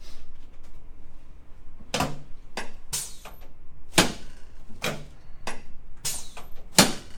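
Chiropractic adjusting table knocking and clacking in a run of about eight sharp knocks, starting about two seconds in, as the patient turns over on it. Two louder knocks come about four and about seven seconds in.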